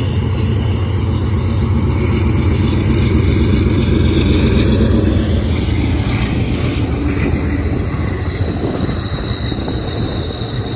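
Amtrak passenger train passing close by, led by a GE P42 diesel and a Siemens ALC-42 diesel-electric locomotive: a heavy, steady engine and rail rumble, loudest near the middle. From about halfway a high steady squeal joins in, typical of wheels on the curve.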